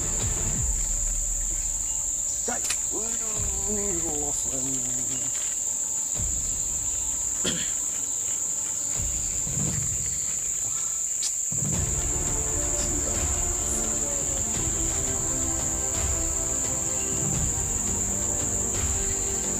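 Insects making a steady, unbroken high-pitched drone, with a few faint clicks over it.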